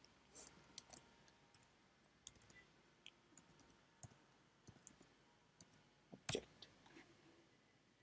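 Faint, irregular clicks of computer keyboard keys being typed, with one louder click a little past six seconds in.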